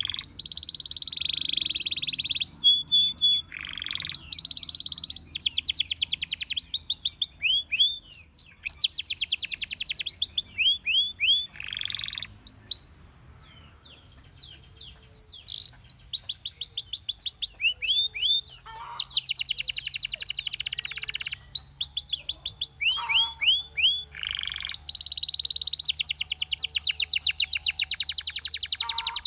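Canary singing: long fast trills of rapidly repeated high notes, broken by short chirps and rolls. The song pauses for a couple of seconds about halfway through, then resumes.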